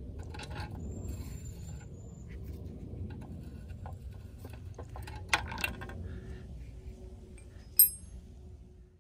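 Open-end wrench working a rusted, torch-heated nut on a steel battery tie-down rod: scattered small metal clicks over a low rumble, two sharper clicks a little after five seconds, and one ringing metallic clink near eight seconds.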